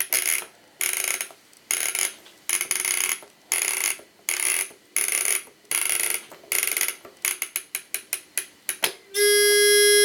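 Short mechanical rasping strokes, about one a second and quickening near the end, from a vintage Krups battery flip clock being worked. About nine seconds in, the clock's battery-powered alarm buzzer goes off with a steady buzzing tone.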